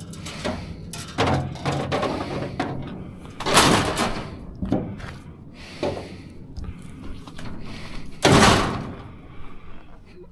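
Metal wire display rack clanking and rattling as it is pushed and wrestled into the back of a van loaded with scrap, with many small knocks and two louder, longer clattering scrapes, about three and a half seconds in and again about eight seconds in.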